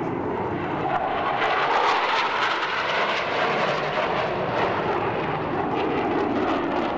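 Jet noise from Mitsubishi F-2 fighters' single General Electric F110 turbofans as they fly a display overhead, a loud, even rush that swells about two seconds in and sinks lower in the second half.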